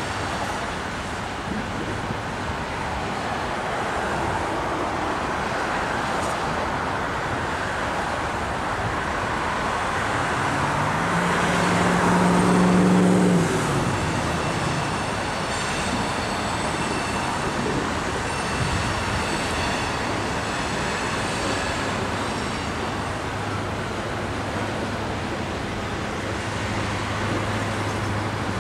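Steady rolling rumble of a loaded coal train's hopper cars passing on the rails, mixed with city traffic noise. About twelve seconds in, a louder motor sound rises and then falls in pitch as it passes. Faint high squeals come and go after it.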